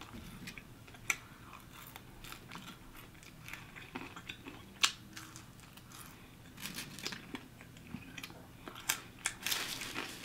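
A person chewing food close to the microphone: soft, scattered mouth clicks, with a few sharper ones.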